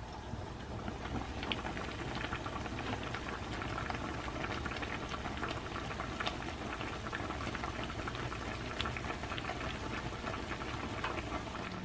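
A pot of broth boiling on the stove: steady bubbling with many small pops.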